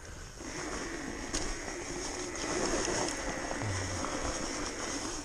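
Sur-Ron electric dirt bike's motor and drivetrain whining steadily as it pulls away, rising about half a second in.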